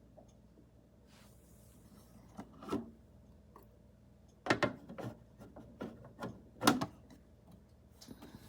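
Handling noises: a few short knocks and rubbing sounds, the two loudest about four and a half and six and a half seconds in.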